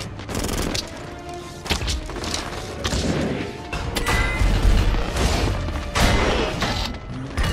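Action-film fight soundtrack: film score music under a rapid string of crashes, booms and impact hits, with a heavy deep rumble from about halfway through.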